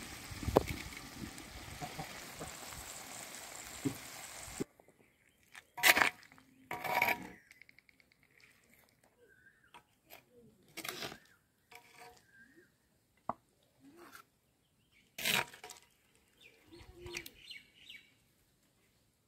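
Chicken curry sizzling steadily in a clay pot over a wood fire, cut off abruptly after about four seconds. Then a metal spoon scraping and knocking against the clay pot in scattered short strokes as pieces are lifted out.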